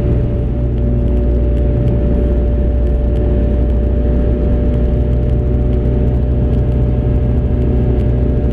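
Engine and propeller of a Tétras ultralight aircraft running steadily in cruise flight, heard from inside the cockpit as a constant low drone.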